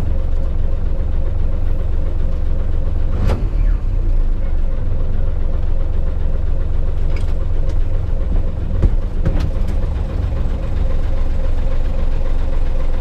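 Heavy truck engine and road rumble heard from inside the cab: a steady low rumble with a constant hum, broken by a few short, sharp knocks.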